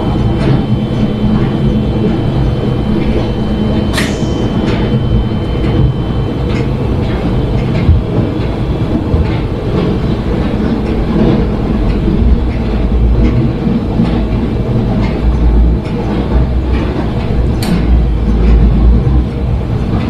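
Ride noise heard inside a moving 2008 Stadler diesel commuter train: a steady low rumble of engine and wheels on the rails, with scattered clicks from the running gear. There is a sharper click about four seconds in and another near the end, and a thin steady high whine for the first few seconds.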